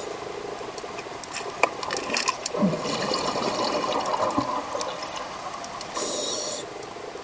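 Scuba diver breathing through a regulator underwater: a long stretch of exhaled bubbles rumbling and clicking, then a short inhalation hiss through the regulator about six seconds in.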